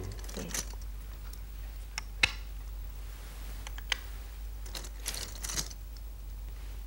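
Go stones clicking as they are set on a wall-mounted magnetic demonstration board: a handful of separate sharp clicks, the sharpest a little over two seconds in, and a short cluster near five seconds. A low steady hum runs underneath.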